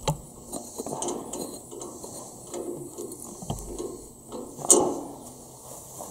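Small metallic clicks and clinks as the oil filter canister cover and its centre bolt are fitted back on by hand, with one louder, sharper click late on.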